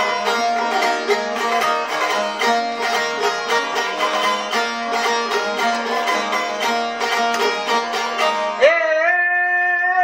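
Albanian long-necked lutes, a çifteli and a sharki, plucked in a fast, busy instrumental passage. Near the end a male voice comes in singing a long held note over them.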